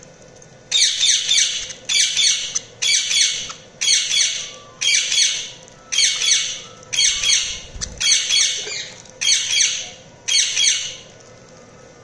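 Budgerigar squawks: a burst of harsh, rapid chattering notes repeated ten times at an even pace of about once a second.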